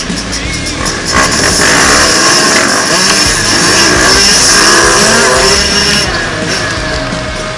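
Several dirt-bike engines revving hard as the bikes accelerate away from a standing start, the pitch climbing and dropping with gear changes. The engines are loudest from about a second in until about six seconds in, then ease off.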